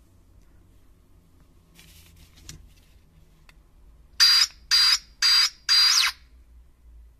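Handheld key tool's frequency tester giving four short static-like buzzing bursts, about half a second apart, as a Land Rover/Jaguar remote key's button is pressed. Each burst marks the tester picking up the key's 434 MHz transmission.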